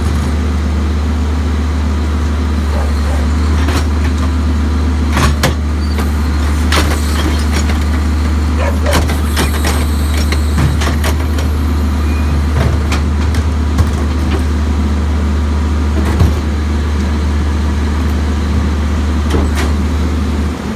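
Crane Carrier garbage truck's diesel engine running with a steady low drone while the Leach rear loader's hydraulic cart tippers lift and dump green wheeled carts, with knocks and clatter of the carts against the hopper. The drone drops away abruptly near the end.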